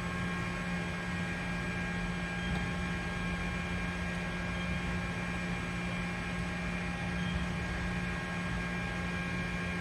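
Mori Seiki NL-3000 CNC lathe running with a steady hum and several steady higher tones over it.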